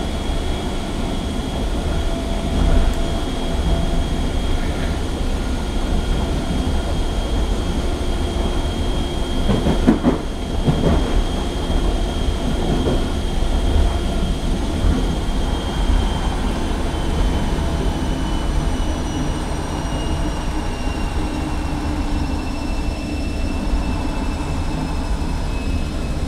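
Irish Rail 8100 class DART electric multiple unit heard from inside its passenger carriage while running: a steady rumble of wheels on the track under a high motor whine. The whine slowly falls in pitch over the last ten seconds as the train slows. A cluster of knocks comes about ten seconds in.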